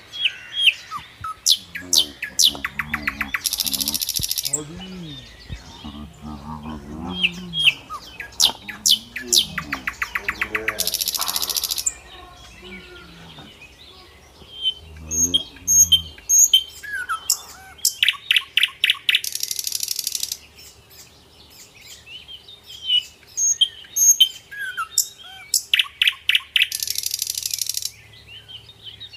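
Birds chirping and singing, one bird repeating a phrase of sharp chirps ending in a fast rattle and a harsh hissing note about every seven or eight seconds.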